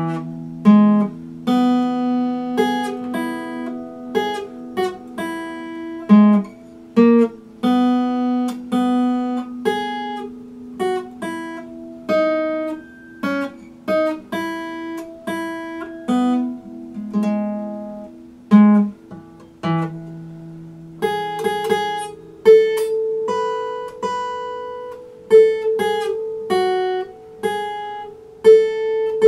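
Steel-string Epiphone acoustic guitar played solo: a melody picked out one note at a time, with lower strings left ringing beneath it.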